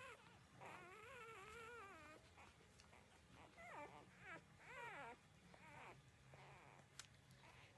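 Newborn puppies whimpering in high, wavering cries: one long cry, then a quick run of short rising-and-falling ones. A single sharp click comes near the end.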